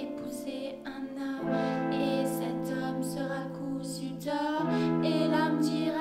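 Two women singing together into one microphone, holding long notes with a little vibrato, with some instrumental music underneath.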